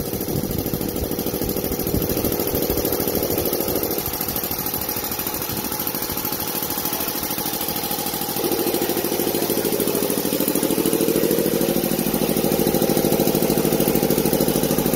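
FS Curtis VA 100 two-head piston air compressor, belt-driven by a 7.5 hp three-phase electric motor, running with a fast, even pulsing beat, louder from about eight seconds in. It has just cut back in automatically at 6 bar and is refilling its tank, a sign that the pressure switch works.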